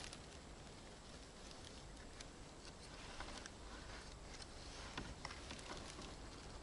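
Faint, irregular light clicks and taps over a quiet background hiss.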